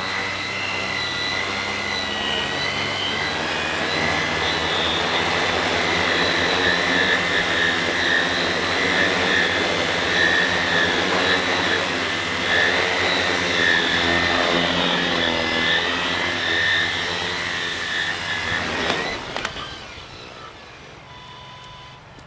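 Electric motors and propellers of a small hobby tricopter whining at high speed as it flies low carrying a toy figure as a load. The pitch shifts up and down with the throttle, and the motors wind down abruptly about nineteen seconds in.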